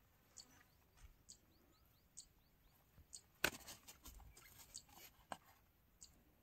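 Near-silent handling of a fish and a nylon mesh net bag: a sharp click about halfway through, then scattered clicks and rustles for about two seconds. Short high chirps repeat faintly about once a second.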